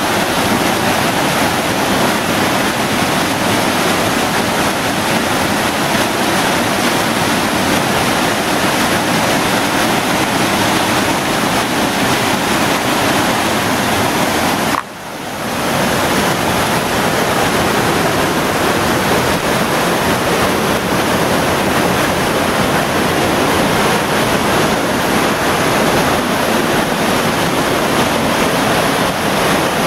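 Creek water rushing and splashing down a small cascade over mossy boulders, loud and steady, with a brief drop in level about halfway through.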